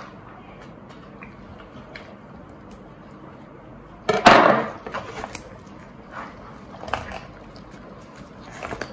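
A raw whole turkey being handled and shifted on a plastic cutting board: a loud shuffling thump about four seconds in, then a few soft clicks.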